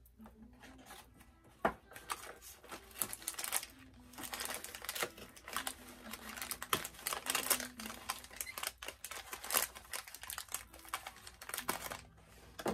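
Doll packaging and small plastic accessories being handled and unwrapped: a quick, irregular run of clicks, taps and crinkly rustles.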